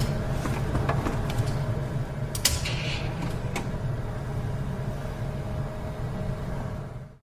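An ATM's internal mechanism running with a steady whir, broken by a few sharp clicks and a loud clack about two and a half seconds in, then cutting off abruptly near the end.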